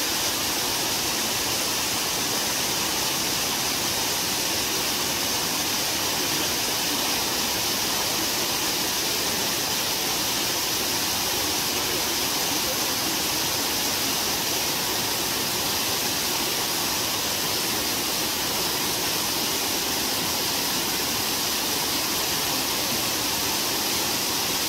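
Small waterfall pouring over a stone ledge and cascading down rocks into a stream: a steady, unbroken rush of falling water.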